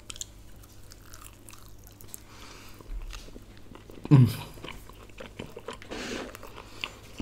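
Close-miked chewing of a mouthful of garlic naan with curry: soft wet mouth sounds and small crackles. There is a brief vocal sound from the eater about four seconds in.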